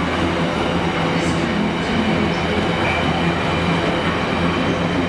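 Intermodal freight train's container wagons rolling past at steady speed, a continuous rumble of steel wheels on the rails.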